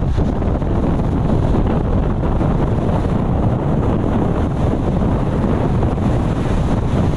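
Strong wind blowing across the microphone: a loud, steady low rumble with no breaks.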